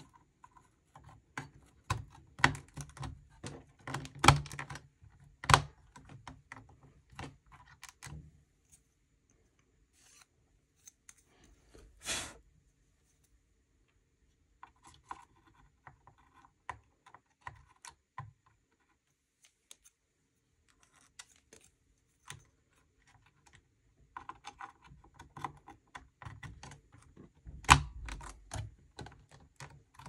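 RAM sticks being handled and seated in the memory slots of a small desktop PC: bursts of small plastic-and-metal clicks and knocks, with one brief scrape about twelve seconds in and a louder click near the end.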